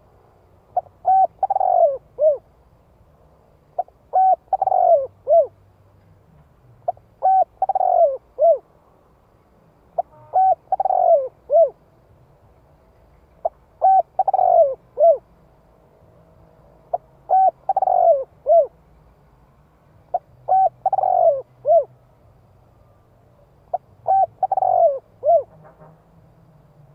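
Spotted dove cooing its song. The same phrase comes eight times, about every three and a half seconds: a couple of short notes, a louder, longer coo, then a short closing note.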